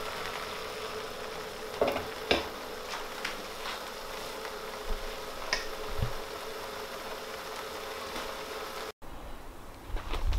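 Thickened mushroom pan sauce simmering in a frying pan on a gas hob: a steady hiss with scattered small pops and bubbles. It cuts off suddenly about nine seconds in.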